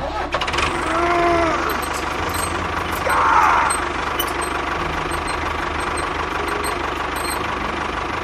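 Small motor-driven machine running steadily with a low, rapid rattle. Brief squeaky gliding tones come about a second in, and a short higher squeal about three seconds in.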